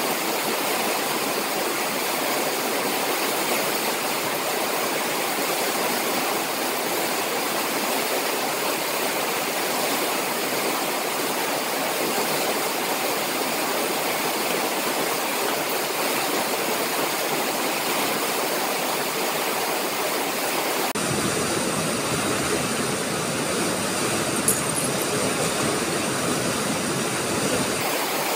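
Steady rushing noise with no tones or rhythm. About 21 seconds in it turns deeper and duller for some seven seconds, with a single brief tick in the middle, then returns to its earlier sound.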